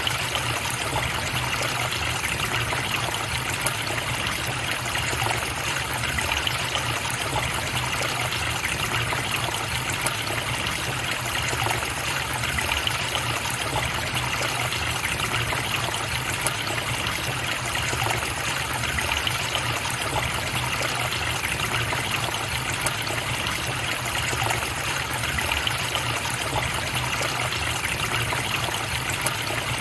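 River water flowing and trickling in a steady, even rush that does not change.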